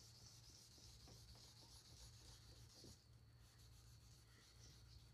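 Faint rubbing of fine-grit wet sandpaper on a plastic headlight lens, with a brief pause about three seconds in.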